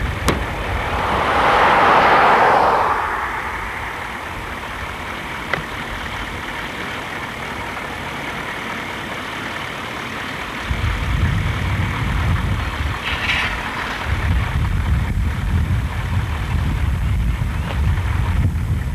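Truck driving along a road: steady engine and road noise, with a rushing noise that swells and fades about two seconds in, and a heavier low rumble from about halfway through.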